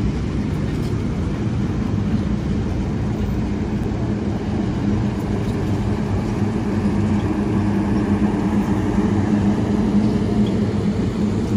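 Streamlined stainless-steel passenger cars of a train rolling past close by: a steady rumble of wheels on the rails with a constant low drone underneath.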